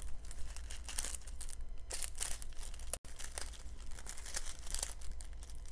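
Small plastic bags of round diamond painting drills being handled and sorted, crinkling and rustling in quick irregular bursts.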